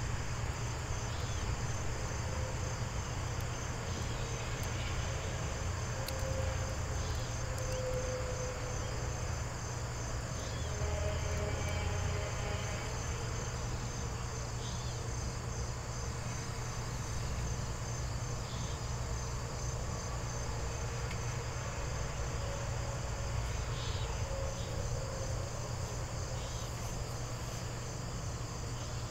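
Crickets chirping in a steady, rapidly pulsing high trill over a low steady hum, with a few faint ticks scattered through.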